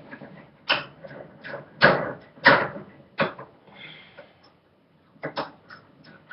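Hands working on a BB gun at a workbench: several short scrapes and knocks, a brief faint scrape, then a few quick clicks near the end.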